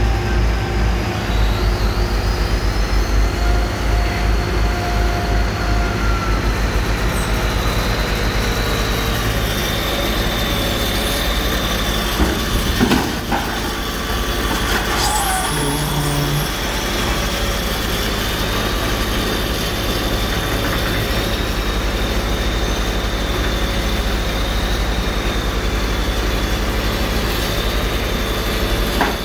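Heavy diesel engine of a front-end loader running with a steady high hydraulic whine, throbbing for the first few seconds and then steadying, as it sets a minivan into a car crusher's chamber. A few metallic clunks about halfway through as the van is set down.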